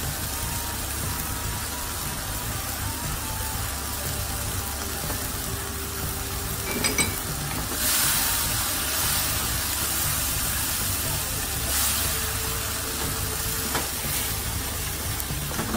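Thick tomato-onion curry base bubbling and sizzling in a frying pan as a wooden spatula stirs and scrapes through it, the sizzle swelling louder twice with the stirring, over a steady low hum. The masala is cooking down to the point where the oil starts to float up.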